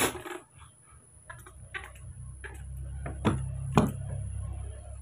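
A few light clicks and taps, two sharper ones about three and a half seconds in, over a low rumble, with a faint steady high-pitched whine.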